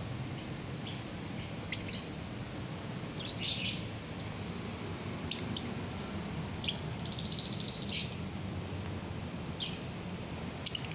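Caged lovebirds giving short, sharp, high-pitched chirps, some single and some in quick runs, the rapid ticking chatter that lovebird keepers call "ngetik". A steady low hum runs underneath.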